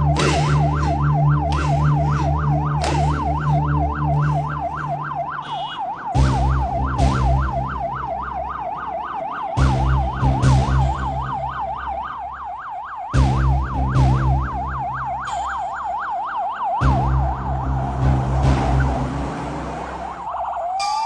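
Police car siren in a fast yelp, sweeping up and down about three times a second over a low steady hum that cuts out briefly several times. Near the end it changes to a slower rising wail.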